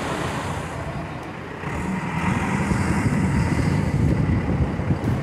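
Backhoe loader's diesel engine working under load as it pushes a heavy boat trailer across wet sand, a steady rumble that swells about two seconds in.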